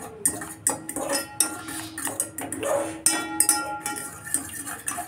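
A metal spoon stirring milky tea in a steel saucepan, clinking and scraping against the pot's sides and bottom in quick repeated strokes.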